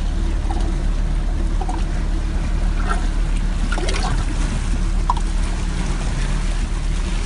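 Boat engine running with a steady low hum, with water trickling and sloshing close by.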